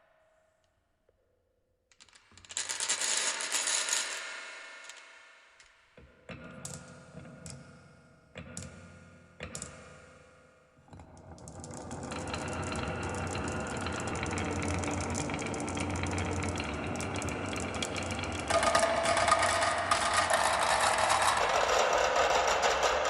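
Marbles clattering down a wooden marble run: a first short rush of clicks, a few separate knocks, then a long continuous rattle of many marbles rolling and colliding that grows louder about two thirds of the way in.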